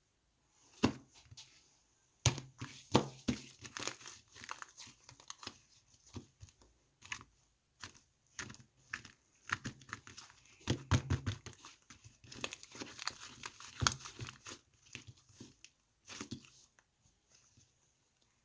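Crinkling and rustling of something being handled, with many irregular sharp clicks and taps in clusters that die away near the end.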